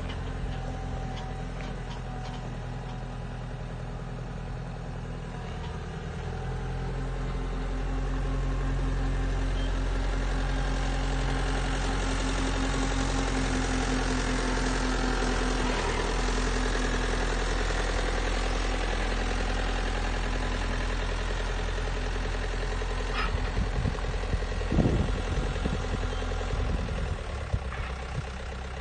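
Diesel engine of a Cat 907H compact wheel loader idling steadily at an even pitch. It is louder through the middle stretch, and there are a few short knocks near the end.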